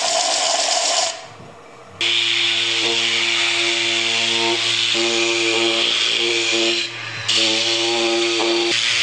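Electric sanders on wood: a stationary disc sander runs for about a second, and after a short lull a palm sander runs steadily over a wooden panel with a steady hum. The palm sander dips briefly near the end, then runs on.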